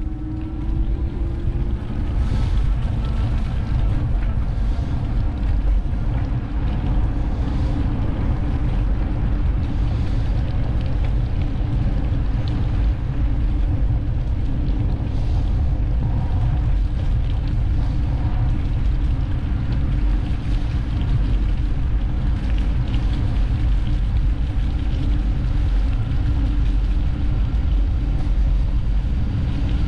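Wind buffeting an action camera's microphone while cycling, heard as a steady low rumble, with riding noise under it.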